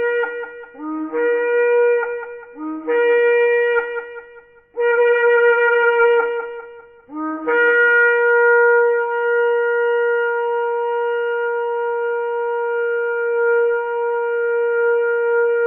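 Shofar blown in a series of calls. First come short blasts that each jump from a low note up to a higher one, then a longer blast, and from about halfway in one long held note.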